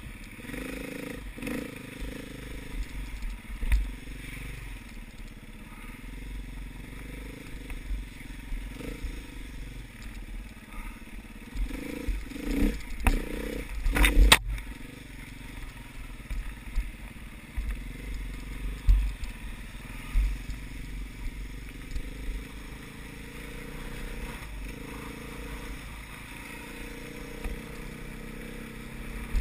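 Enduro motorcycle engine revving up and down as the bike is ridden over a dirt trail, heard from a camera on the bike, with a steady low wind rumble on the microphone. A cluster of loud knocks and scrapes comes about halfway through.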